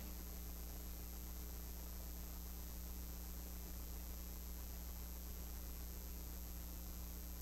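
Low, steady electrical hum with a faint hiss, unchanging throughout.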